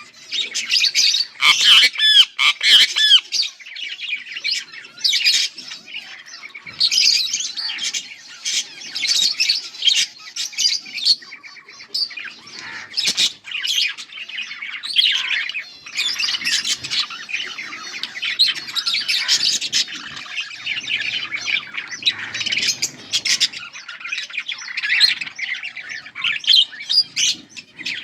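A pair of budgerigars chirping and chattering without a break, with a few louder squawks about two seconds in.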